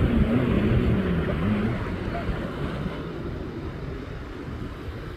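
Watercraft engine running offshore, its pitch rising and falling for the first couple of seconds and then fading, over a steady wash of wind and surf.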